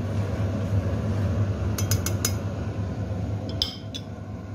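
A metal utensil clinking against a cooking pot, a quick run of about four knocks about two seconds in and a couple of ringing clinks near the end, over a steady low hum.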